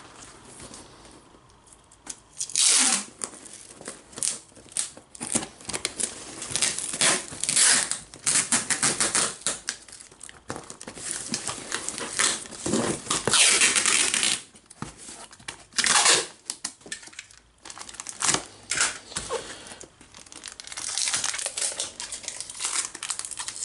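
Clear packing tape pulled off its roll in several noisy strips and pressed down onto a cardboard box to seal the flaps shut.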